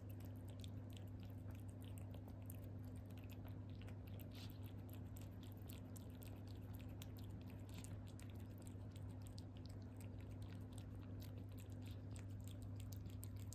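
Calico cat eating soft wet food from a ceramic bowl: quick, irregular wet chewing and mouth clicks, over a steady low hum.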